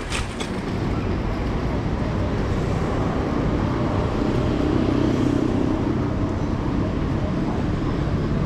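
Steady city street traffic noise with a low rumble of wind on the microphone while cycling. There is a brief cluster of clicks right at the start.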